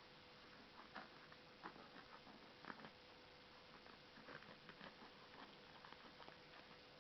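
Faint, irregular small clicks and scrapes of a parcel's packing being cut and picked open by hand, over a faint steady hum.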